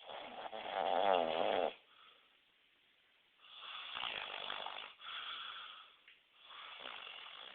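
A sleeping man snoring loudly, three snoring breaths. The first is the loudest, a buzzing snore of nearly two seconds whose pitch wavers; the two that follow are longer and quieter.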